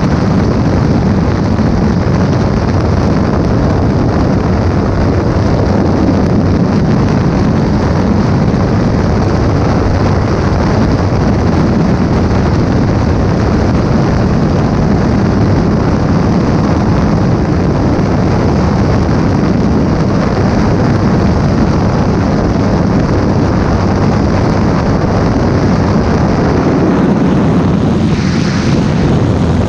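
Yamaha R3's parallel-twin engine with a full exhaust running flat out near 190 km/h, under heavy wind rush on the microphone. Near the end the sound eases and changes as the bike slows.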